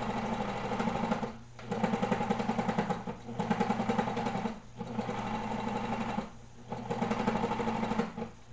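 Home-style serger (overlock sewing machine) stitching an overlocked seam through knit fabric, running in spurts with five brief stops.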